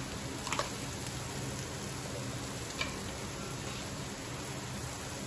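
Sliced shallots sizzling steadily in hot coconut oil in a nonstick frying pan, with a couple of faint ticks, about half a second in and near three seconds in.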